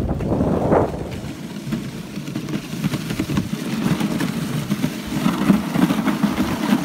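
Wooden dog sled running over packed snow: the runners hiss and rumble on the snow track, with wind buffeting the microphone.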